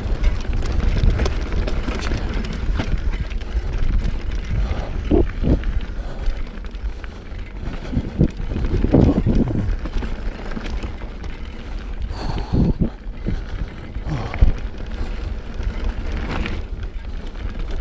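Mountain bike riding over a rocky gravel trail: wind buffets the camera microphone in a constant low rumble while the tyres run over stones and the bike rattles and knocks over bumps.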